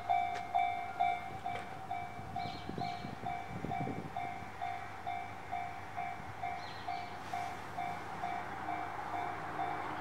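Japanese level-crossing warning bell ringing its repeated electronic clang, about two strokes a second, with a few low thuds in the first four seconds.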